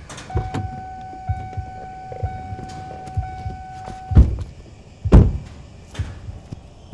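Car door opened with a thud about four seconds in and shut with a second thud about a second later. Before that, a steady high tone sounds for about four seconds and cuts off as the door opens, over small knocks and handling sounds.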